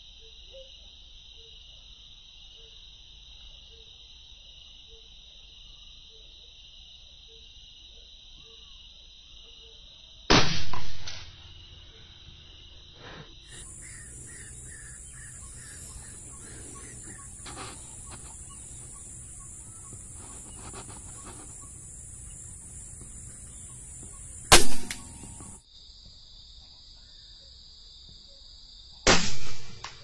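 Steady high chirring of insects, jumping abruptly higher about 13 seconds in and lower again about 26 seconds in, broken by three loud sharp bangs: about ten seconds in, about 25 seconds in, and near the end.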